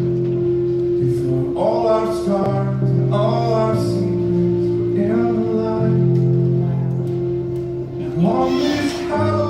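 Music: a song with guitar and singing in short phrases over a steady held note.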